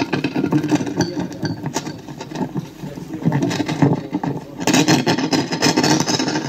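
Clear plastic bag crinkling and rustling as hands work it close to the microphone, with dense crackling throughout that is loudest in the last two seconds.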